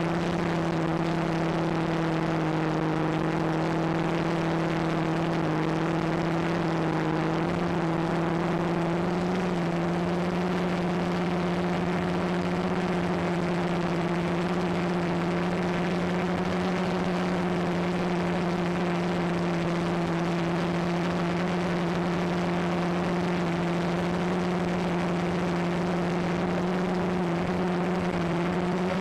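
Walkera QR X350 Pro quadcopter's brushless motors and propellers humming steadily in flight, heard from its onboard camera, the pitch shifting slightly now and then.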